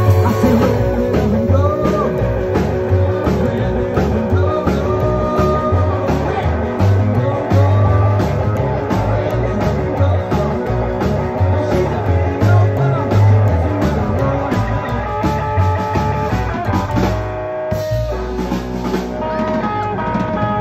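Live rockabilly band playing: hollow-body electric guitar playing lead lines over upright double bass and a drum kit. The band breaks for an instant near the end, then the guitar carries on.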